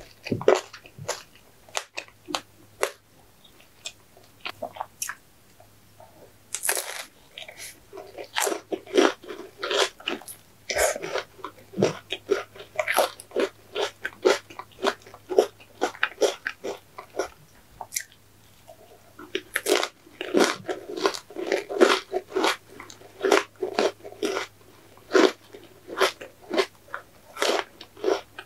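Close-miked ASMR eating: a person biting and chewing ice cream cake with a crisp wafer, repeated sharp crunches about two or three a second, pausing briefly twice.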